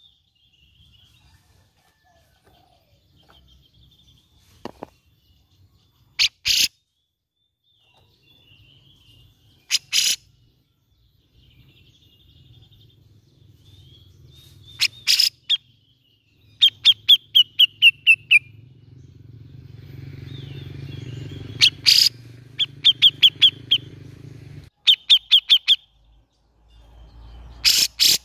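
Grey-cheeked bulbul (cucak jenggot) calling: loud short single calls every few seconds, and runs of rapid notes, about ten a second, falling slightly in pitch.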